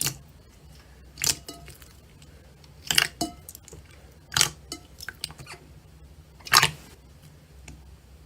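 Slime being squished and poked by hand: five sharp crackling pops a second or two apart, with smaller clicks between.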